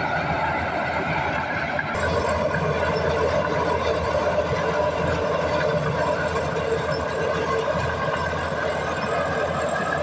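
Komatsu D61EX crawler bulldozer's diesel engine working steadily under load while the blade pushes a heap of soil and rock, with the running noise of its steel tracks.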